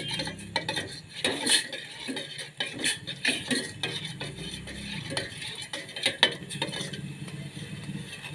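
A spoon stirring a pot of ginger juice and sugar as it heats toward the boil, scraping and clinking irregularly against the pot, with a low steady hum underneath.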